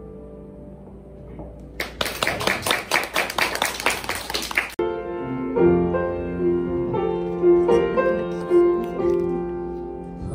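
A piano's last notes die away, then hands clap about four times a second for roughly three seconds, starting and stopping abruptly. After that a solo piano plays sustained notes and chords, the introduction to the next chanson.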